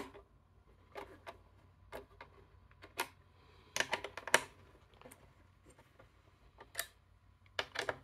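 Scattered small clicks and taps of a screwdriver on the metal screws and bracket of a mini PC's CPU heatsink as it is fastened down, with a quick run of clicks about four seconds in.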